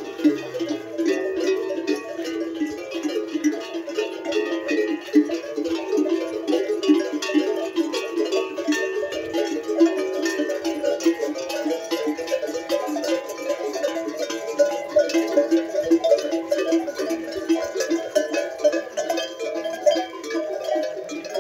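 Metal neck bells on a walking herd of camels, many clanking and ringing together in a steady, irregular jangle.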